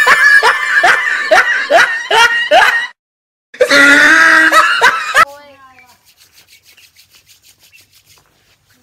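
Women laughing hard, a run of short rising 'ha' bursts about twice a second, then after a brief break another loud stretch of voice. It gives way to a faint, rapid, even chirping of insects, like crickets.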